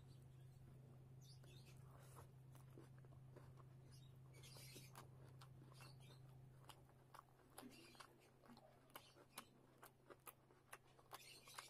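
Fingers mixing rice with curry on a steel plate: faint, wet sticky clicks and squelches, coming more often in the second half, over a steady low hum.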